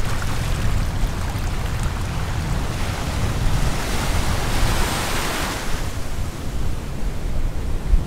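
Ocean surf: a wave breaks and washes in, its hiss rising about three seconds in and fading away near six seconds, over a steady low rumble of wind on the microphone.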